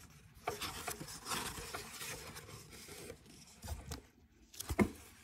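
Pages of a picture book being turned and handled: paper rustling and sliding, with a couple of soft knocks near the end as the book is set back down.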